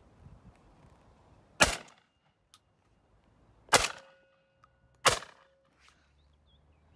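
Three shotgun shots from semi-automatic shotguns: one about one and a half seconds in, a second about two seconds later, and a third just over a second after that.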